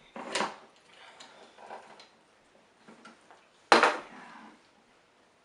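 Clatter of a tin food can and utensils being handled, with a single sharp knock about three and a half seconds in.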